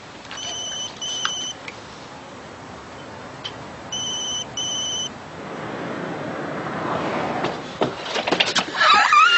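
Electronic telephone ringing in the British double-ring pattern, two short warbling rings then a pause, heard twice. In the second half a rushing noise swells, ending in clicks and a sliding squeal.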